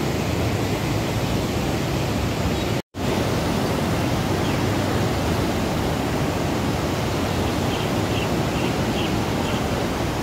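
Floodwater rushing in a swollen river: a steady, even noise with no let-up. It cuts out for an instant about three seconds in.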